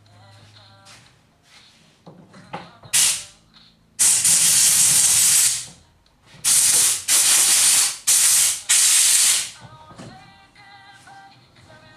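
Compressed air blowing out a chainsaw carburetor: a short hissing blast, a longer one of about two seconds, then four more blasts in quick succession.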